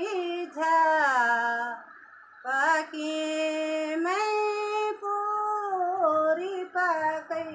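A woman singing solo and unaccompanied, in long held notes that slide from one pitch to the next, with a short breath pause about two seconds in.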